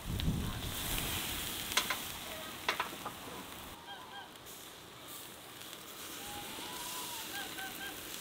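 Geese honking in short repeated calls, with two sharp metallic clicks about two seconds in as the wire grill basket is handled, over a steady hiss from the charcoal grill.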